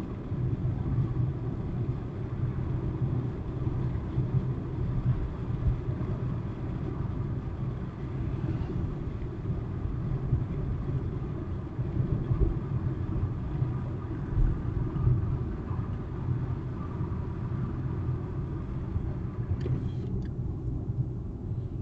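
Car interior road noise picked up by a windshield-mounted dash cam while driving: a steady low rumble of tyres and engine at highway speed. The higher hiss thins out near the end.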